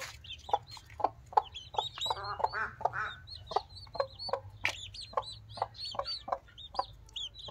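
A hen clucking in short, regular notes, about three a second, while her chicks peep in high chirps all around her.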